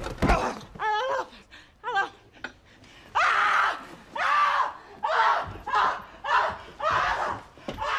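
A sharp knock at the start, then loud wordless human cries: a quavering wail, followed by a string of shouts or yells about every 0.7 seconds.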